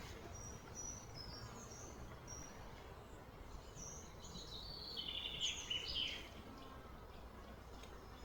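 Small birds chirping faintly over a steady low background rumble, with a brief cluster of louder chirps about four to six seconds in.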